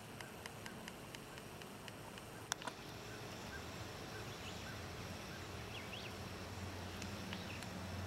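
Chorus of Brood XIX periodical cicadas, a steady drone, with small clicks and one sharper click about two and a half seconds in.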